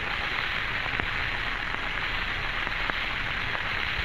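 Steady hiss and static of the Friendship 7 capsule's voice recording, with a few faint clicks and no one speaking.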